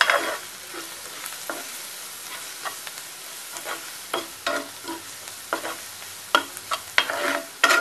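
Chopped onions frying in oil in a non-stick pan with a steady faint sizzle, while a spatula stirs them, scraping and knocking against the pan at irregular moments as the turmeric and garam masala are mixed in.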